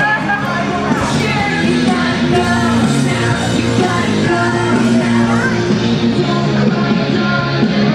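Loud rock music from a live band: electric guitar with a singer's voice over it.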